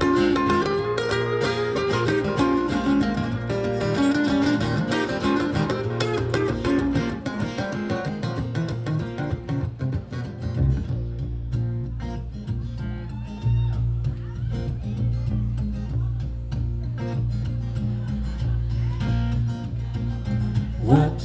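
Instrumental passage of live music: a baritone guitar played with effects, with dense plucked notes. About ten seconds in, a steady deep bass line comes in underneath and the upper notes thin out.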